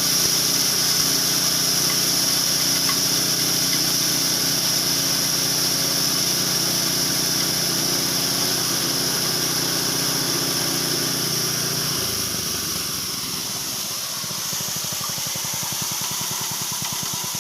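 Engine-driven multifunction chopper machine running while grinding corn kernels, a steady hum with a strong high hiss. About twelve seconds in, the hum drops away and the engine settles into a slower, evenly pulsing run.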